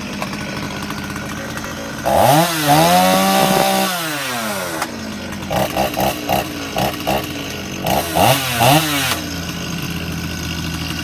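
Stihl 021 two-stroke chainsaw running with its chain brake set, its carburettor adjusted by ear after a fuel-leak repair. It idles, is revved up hard about two seconds in and held for a couple of seconds, then gets a string of short throttle blips and one more rev before settling back to idle.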